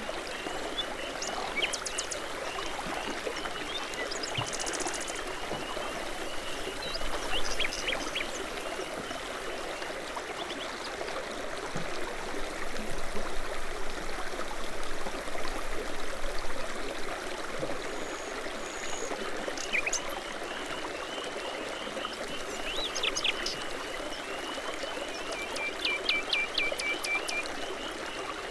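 Babbling brook: water burbling steadily, with songbirds chirping and whistling at intervals over it, and a quick run of repeated notes near the end.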